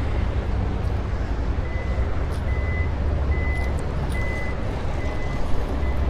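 Vehicle backup alarm beeping steadily, a high single-pitch beep about once a second starting a couple of seconds in, over a steady low rumble.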